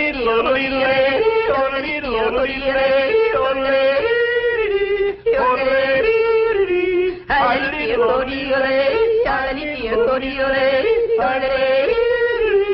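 A man yodeling, his voice flipping back and forth between a low chest note and a high falsetto note in repeated phrases, with two short breaths about five and seven seconds in.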